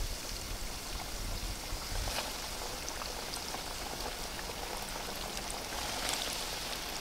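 Flour-coated chicken wings deep-frying in hot canola oil in a pot: a steady sizzle with fine crackling. The sizzle swells slightly about six seconds in as another floured wing is lowered into the oil.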